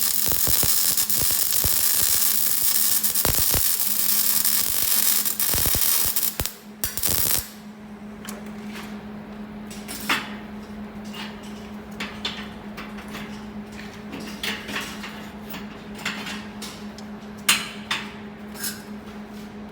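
Arc welding crackling and hissing for about seven seconds, then the arc cuts off. Afterwards a steady hum remains, with scattered light clicks and taps.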